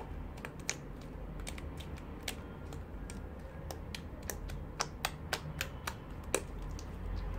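Purple glitter slime being pressed and poked by fingertips on a wooden tabletop, giving a string of small, irregular wet clicks, the sharpest about six seconds in.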